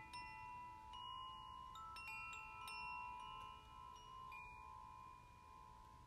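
Faint chimes: bright metallic notes struck one after another in the first few seconds, each ringing on. The ringing dies away toward the end.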